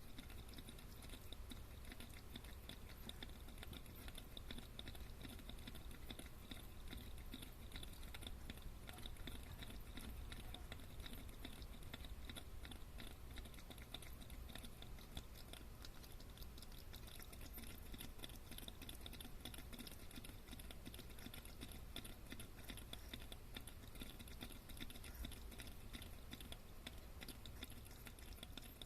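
Mud crab breathing air with its body held up out of the seawater on its legs: a faint, continuous crackle of rapid tiny clicks.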